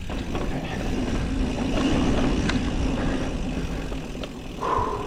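Mountain bike rolling fast down a dirt jump trail: tyres on dirt, the bike rattling, and wind buffeting the microphone, with a short squeal near the end.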